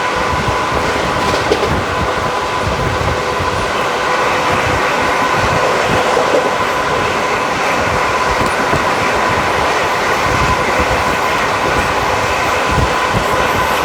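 Passenger train coach running steadily along the track, heard from a window seat: continuous wheel-and-rail rumble with irregular knocks over the rail joints and a faint steady high whine.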